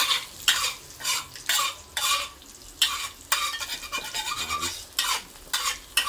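Metal wok spatula scraping and turning diced dried mushrooms and dried shrimp in a hot wok, in strokes about twice a second. Oil sizzles at medium heat between the strokes.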